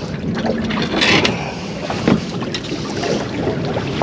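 Wind buffeting the microphone over water, with a few short sharp knocks scattered through.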